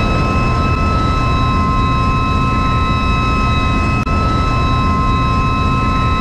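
Loud, steady engine-room machinery noise from the ship's hyper-mist water-mist firefighting system running and spraying over the main engine: a low rumble with several steady high whines. There is one brief click about four seconds in.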